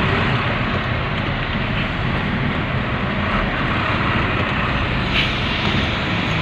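A truck's engine running steadily, heard from inside the cab, under a continuous wash of traffic and cab noise.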